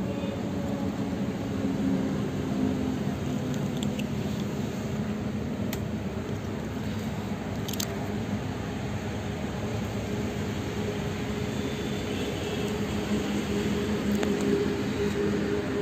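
Steady low rumble of outdoor background noise with a faint engine-like hum, and a couple of light clicks about six and eight seconds in.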